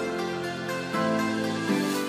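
Background music with sustained chords that change every second or so.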